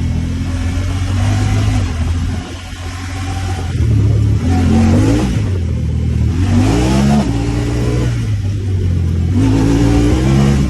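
Honda Talon 1000R side-by-side's parallel-twin engine running and revving, its pitch climbing and falling three times in quick surges after a brief lull about two seconds in.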